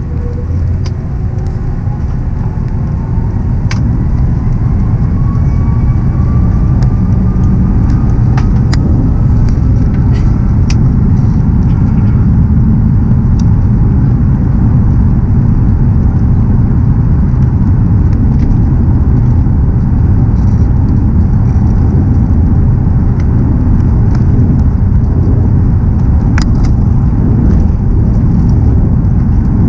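Airbus A330-300 takeoff roll heard from inside the cabin: the engines spool up with a whine rising slowly in pitch over the first ten seconds or so, under a heavy, steady rumble that grows louder and then holds. Occasional sharp rattles and clicks from the cabin fittings.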